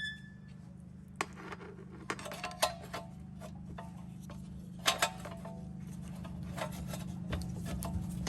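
Scattered metallic clinks and taps from tools and metal parts being handled during brake and wheel work, with a few short ringing strikes, over a steady low hum.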